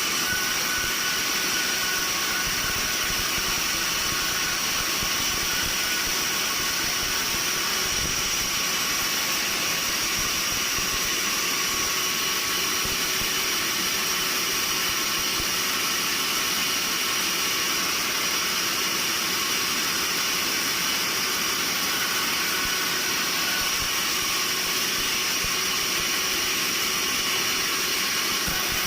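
Sawmill machinery running steadily: an even, high hiss with a few thin whining tones and no change in level.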